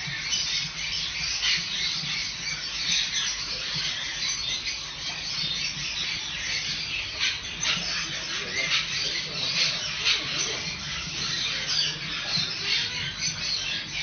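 Many shop birds calling at once, a dense, continuous chatter of short, high squawks and chirps over a low steady hum.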